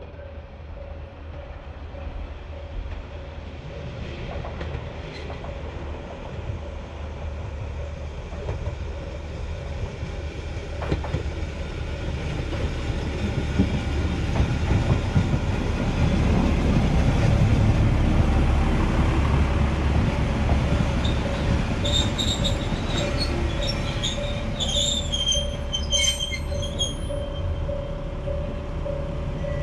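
Hokujo Railway Flower 2000 diesel railcar approaching and pulling into the station, its engine and wheels on the rails growing steadily louder as it nears. Near the end it squeals as it brakes to a stop, leaving the engine running at the platform.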